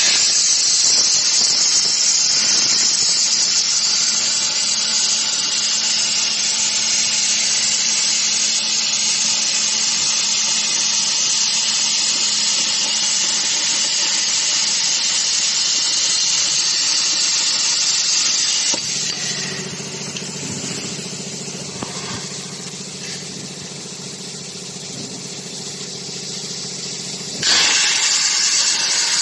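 CNC plasma cutting torch cutting channel steel: a loud, steady hiss of the plasma arc blowing through the metal. About two-thirds of the way through it drops to a quieter hiss over a low hum for several seconds, then comes back at full strength near the end.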